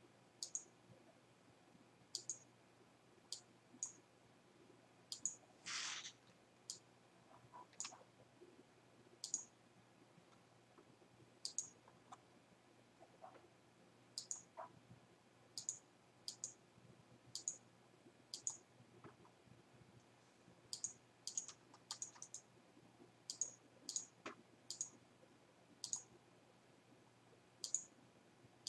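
Computer mouse clicking: single short clicks at uneven intervals, roughly one every second, with a slightly longer scraping click about six seconds in.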